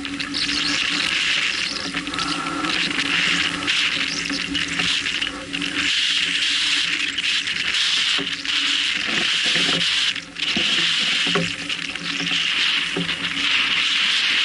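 Water rushing and splashing along the hull of a heeling sailboat under sail, a steady hiss of bow wave and spray, with a steady low hum underneath.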